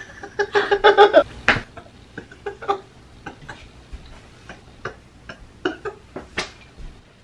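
A person laughing in an odd, unusual way: a pitched laugh for about the first second and a half, then short, quiet breathy snickers and clicks scattered through the rest.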